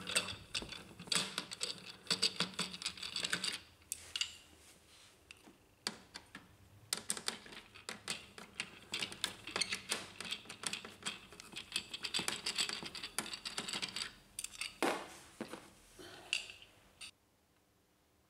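A screwdriver backing two screws out of a Brother HL-1110 laser printer's high-voltage circuit board and frame: rapid small clicks and scrapes in two runs, one about a second in and another from about seven seconds. A sharper click comes near fifteen seconds.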